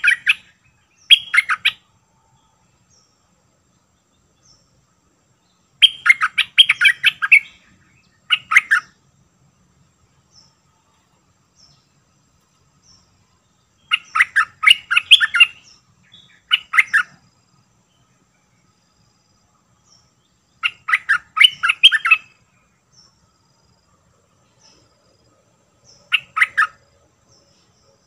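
Stripe-throated bulbul song: short phrases of rapid notes, given in bursts every few seconds, about eight times, with faint chirps of other birds between them.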